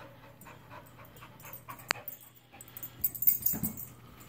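Dog panting close to the microphone. It is faint at first and gets louder and more irregular in the last second or so. There is one sharp click about two seconds in.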